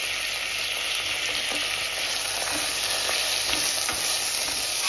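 Sliced tomatoes and onions sizzling steadily in hot oil in a non-stick pot, softening as they fry. A steel ladle stirs them, with a few light scrapes and ticks against the pan.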